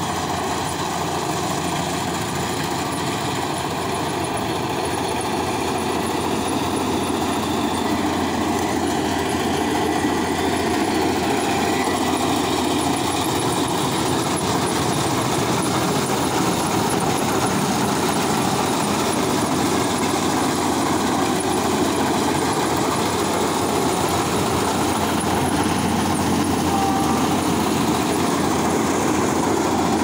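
Tracked MS-1200 combine harvester running as it cuts standing crop: a steady drone of engine and threshing machinery that grows gradually louder.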